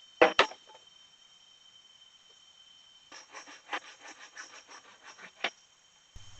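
Two sharp knocks near the start, then a run of lighter clicks and rustles ending in one sharper click, over a steady high insect buzz.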